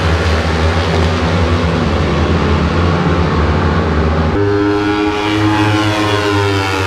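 Racing motorcycle engines on the circuit: a steady loud rumble, then, about four seconds in, one bike's high engine note takes over, falling in pitch as it goes by.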